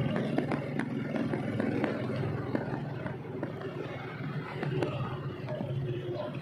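Motorcycle engine of a tricycle (motorcycle with sidecar) running a short way ahead, a steady low drone, over street traffic noise with light clicks and rattles.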